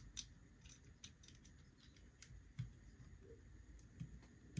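Faint, scattered small clicks from fingers fitting the metal linking shunt onto the terminals of a pair of 12 V sealed lead-acid batteries. Otherwise near silence.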